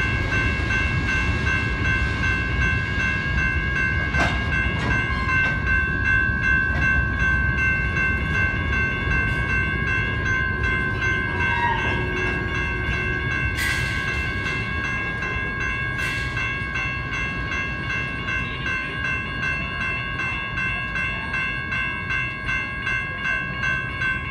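Railroad crossing bell ringing steadily over the low rumble of freight cars rolling slowly past, the rumble easing toward the end. Two sharp clicks stand out partway through.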